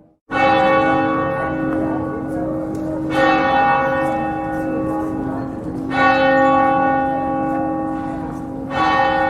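Church bell tolling slowly: four strokes about three seconds apart, each ringing on into the next.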